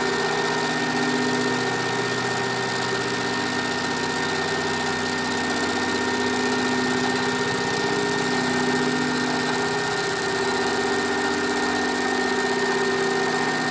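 Metal lathe running steadily through a cylindrical turning pass: the tool cuts the rusty, uneven outer skin off a raw steel bar, over a constant hum and a thin high whine.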